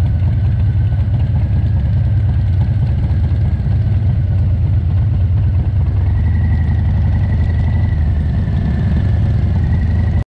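Harley-Davidson V-twin motorcycle engines running steadily at riding speed, a loud, even low rumble with road noise over it.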